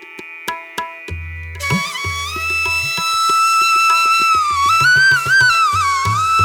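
Background instrumental music in an Indian classical style. A flute melody with sliding, bending notes comes in about one and a half seconds in, over a steady pattern of low drum strokes.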